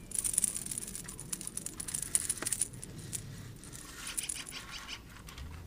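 Light metallic jingling and clicking from fishing gear being handled, busiest in the first couple of seconds, then thinning out.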